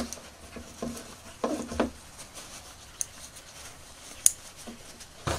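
Handling noise from small cloth trousers being worked onto a jointed plastic action figure: soft fabric rustles, with a couple of sharp little clicks from the plastic figure about three and four seconds in.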